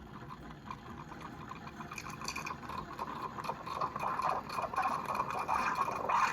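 Espresso machine steam wand steaming milk: a crackling, bubbling hiss that builds and grows louder about two seconds in, with a thin steady tone over it. The wand is still warming up before it steams at full strength.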